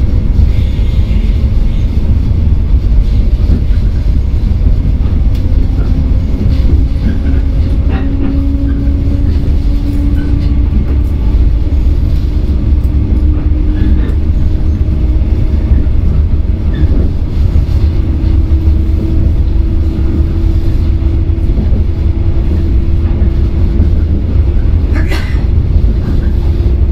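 Running sound inside the motor car of a JR 115-series electric train: a heavy, steady rumble of wheels on rail and the traction motors. A motor whine rises slowly in pitch as the train gains speed, with a few scattered clicks.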